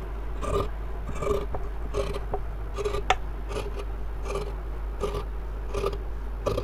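Large tailor's shears cutting through cloth on a table: a steady run of snips, roughly one every half second to second, with a few sharp clicks of the blades closing.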